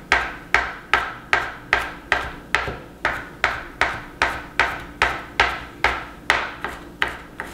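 Chef's knife mincing garlic on a cutting board: a steady run of chops, about two and a half a second.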